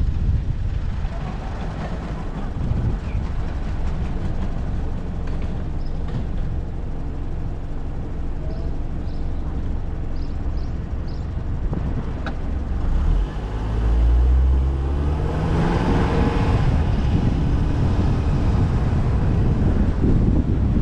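Manhattan street traffic with a steady low rumble. About thirteen seconds in, a vehicle engine accelerates, its pitch rising over a few seconds before settling back into the traffic noise.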